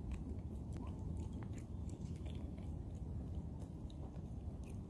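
Baby macaque sucking and nibbling on a person's finger: small, irregular wet mouth clicks over a steady low rumble.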